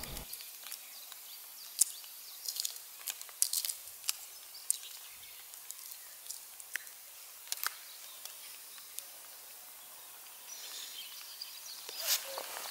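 Shell of a boiled egg crackling as it is cracked and peeled by hand: scattered small, sharp crackles over a faint steady hiss.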